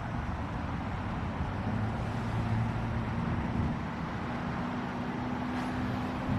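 Steady motor-vehicle noise with a low engine hum that grows a little stronger about two seconds in.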